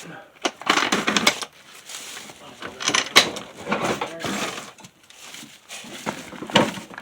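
Irregular metal clanks and rattles from parts and tools being handled.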